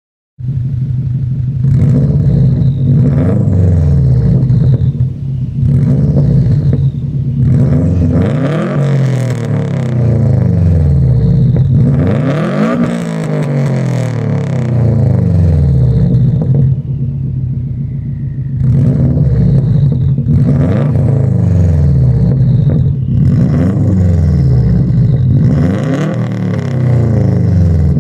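Straight-piped Subaru Impreza WRX with its catalytic converter deleted: its turbocharged flat-four runs loud, climbing in pitch and falling back over and over as it revs and accelerates.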